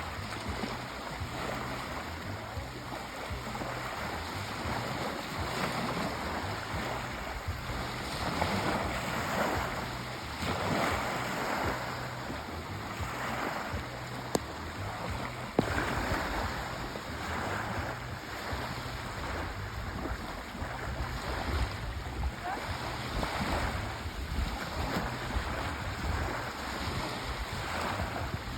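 Sea waves surging and washing back, a continuous rush that swells and ebbs every couple of seconds. Two brief sharp clicks a little past halfway.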